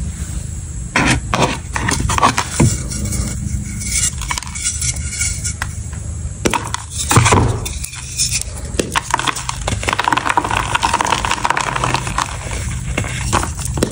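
A moulded block of reformed gym chalk being squeezed and broken apart by hand: a run of dry crunching cracks, the loudest snap about halfway through as it splits, then softer crumbling as the pieces crush to powder.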